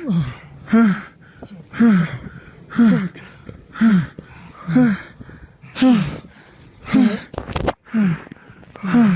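A person breathing hard in distress, close to the microphone: each breath is voiced as a short groan that falls in pitch, about once a second.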